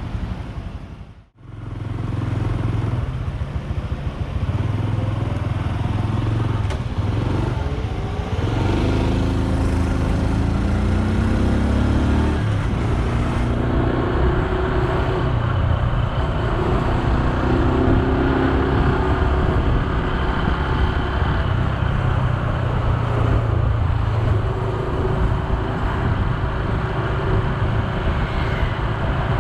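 Honda Super Cub C125's air-cooled single-cylinder four-stroke engine running on the move, its pitch rising and falling with the throttle, over road and wind noise. The sound cuts out briefly about a second in.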